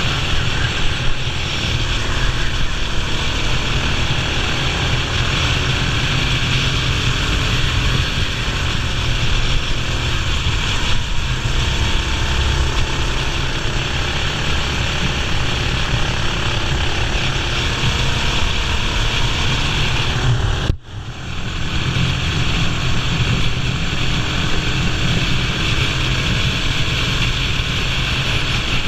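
Racing kart engine running hard on track, a loud, steady mechanical drone heard from on board. About two-thirds of the way through, the sound cuts out for an instant and then comes back.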